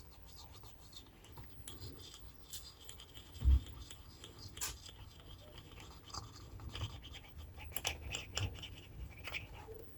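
Faint scratching and small clicks from hands and a small tool working on a tweeter, with one dull knock about three and a half seconds in.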